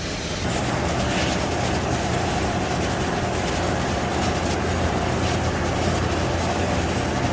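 Overhauled fire pump engine running steadily under test, with a continuous low hum under a dense mechanical noise that gets louder about half a second in.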